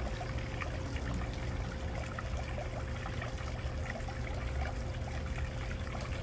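Water trickling and splashing steadily from a small spout beside a decorative water wheel into a basin. Under it there is a low rumble and a steady faint tone.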